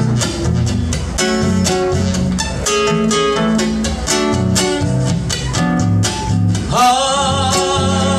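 Acoustic guitar strummed in a steady rhythm as an instrumental break. Near the end a singer comes in on a long held "Ay" with vibrato.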